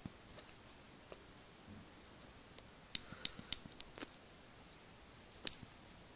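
Faint, sharp clicks from the buttons of a fake iPod Shuffle being pressed and the small player being handled, bunched together about three to four seconds in and again near five and a half seconds.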